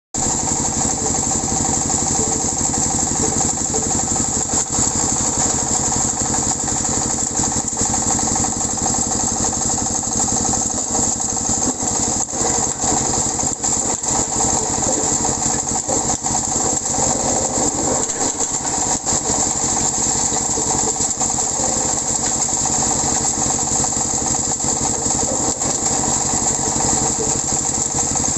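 Organic waste shredder machine running steadily, its motor droning at an even pitch with a few irregular clatters.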